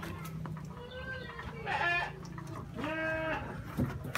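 Young goats bleating: three short calls about a second apart, the first faint and the later two louder.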